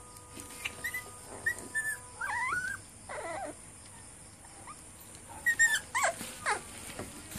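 Young red-nose pit bull puppy whimpering while being handled: short high squeaks, then a few longer wavering whines, a pause, and another burst of squeals about five and a half seconds in.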